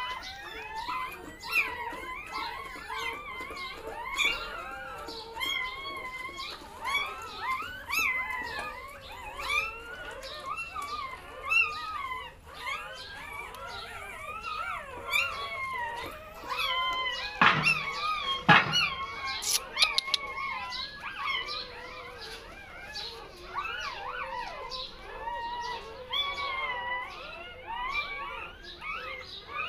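A litter of newborn puppies squeaking and whimpering without pause, many short, high, wavering cries overlapping. Two sharp knocks a little past halfway.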